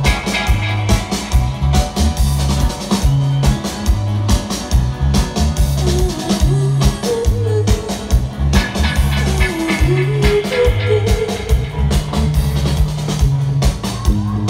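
Live reggae band playing, with a loud repeating bass line, drums and guitar.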